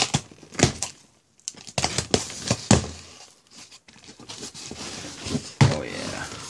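A cardboard shipping case being cut and torn open: scratchy rushes of tearing tape and cardboard, with several sharp knocks as the flaps are pulled back and folded down.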